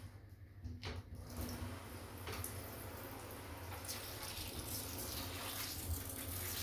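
Water running through a newly fitted StoneStream shower head and spraying into a bath. The spray starts weak and fills out into a steady hiss after about a second as the head fills with water and the air is pushed out.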